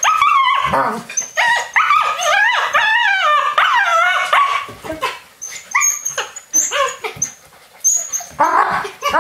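Alaskan Malamute puppies yipping, whining and barking as they play-fight, with a fast run of high, wavering whines in the first few seconds, a quieter stretch in the middle, and more yips near the end.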